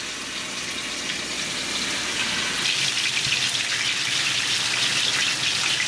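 Steelhead trout pieces sizzling in hot olive oil in a frying pan as they are laid in. The sizzle grows louder about halfway through, as the pan fills.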